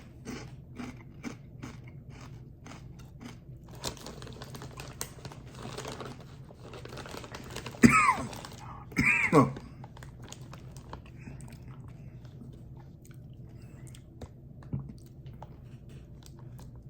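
Close-up chewing of a crunchy kettle-cooked rolled tortilla chip (Takis Kettlez Fuego), a quick run of crisp crunches for the first few seconds, then denser chewing. About eight and nine seconds in come two loud coughs, set off by the chip's chili heat.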